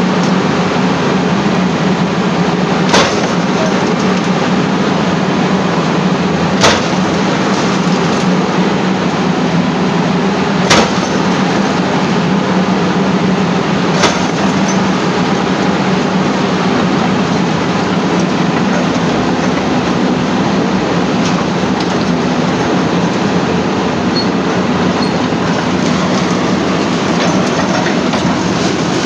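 Heavy demolition machinery running steadily, with four sharp knocks about three to four seconds apart in the first half.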